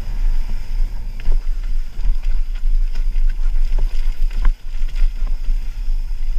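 Mountain bike riding fast down a rough dirt trail: steady wind rumble on the microphone and tyre noise, with a few sharp clacks from the bike rattling over rocks.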